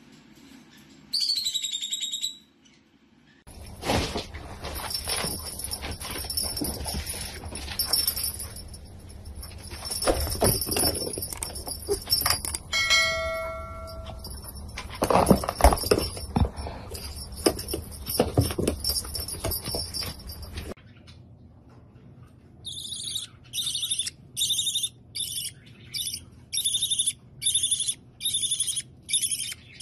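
A newly hatched chick peeps once, about a second in. Then comes a long stretch of scuffling and knocking. In the last seven seconds a baby conure gives rhythmic high begging peeps, nearly two a second, while it is being fed.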